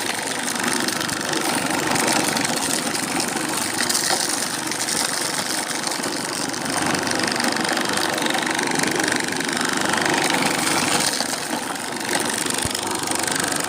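An engine-driven corn grinding mill running steadily, a loud, continuous mechanical din of motor and mill.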